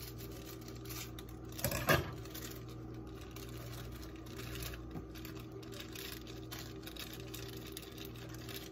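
Sauce simmering in a skillet with small crackling pops over a steady low hum. A plastic bag rustles as its contents are shaken into the pan, and there is one brief louder rustle or knock about two seconds in.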